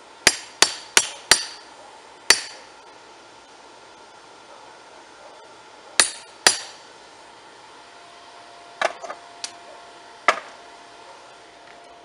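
Hammer striking a handled chisel set on a railroad spike on a rail-section anvil, with sharp metallic strikes that ring briefly: four quick blows, a single one, a pair, then a few lighter clinks and one last blow.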